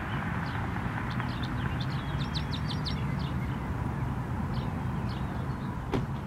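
Small birds chirping over the low, steady rumble of a distant engine that slowly fades; one sharp click near the end.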